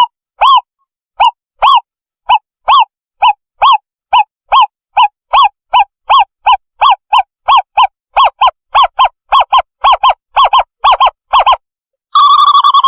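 Owl call used as a trapping lure: a series of short hooting notes that speed up steadily from about two to about four a second. Near the end it changes to a continuous wavering trill.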